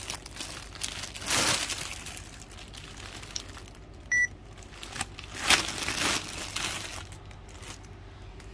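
Clear plastic garment bags crinkling in several bursts as packaged children's clothes on metal hangers are handled. A single short electronic beep sounds about four seconds in.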